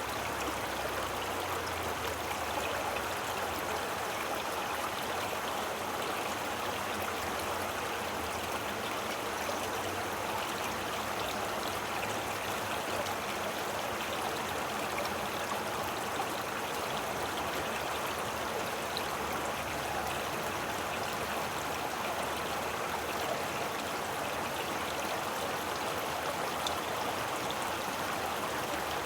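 Stream of running water flowing and babbling steadily.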